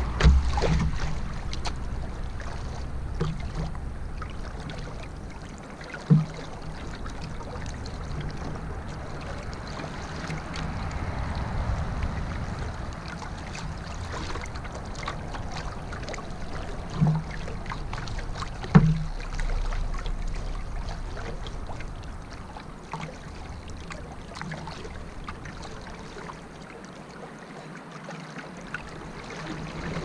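Canoe moving down a river, water washing and trickling along the hull as it is paddled, with three sharp knocks: one about a fifth of the way in and two close together just past the middle, the last the loudest.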